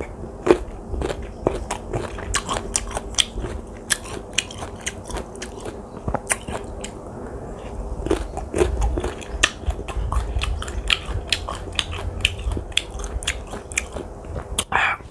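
Close-up crunching and chewing of crisp, unripe water mango (mangga air): many sharp, irregular crunches as the firm flesh is bitten and chewed.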